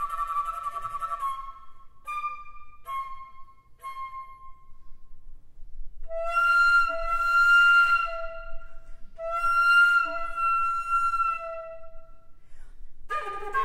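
Solo flute playing: a held note fading away, a few short separate notes, then two long phrases of sustained notes with a short break between them. Near the end a thicker sound with several pitches at once begins.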